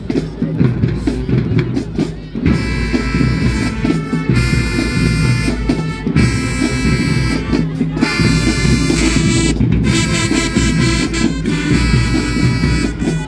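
Marching band playing: heavy drumming, with horns coming in over it about two and a half seconds in and holding loud chords.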